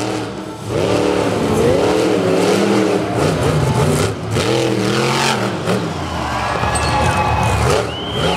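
Monster truck engine revving hard on and off the throttle, its pitch rising and falling several times as the truck drives across the dirt. A higher whine comes in near the end.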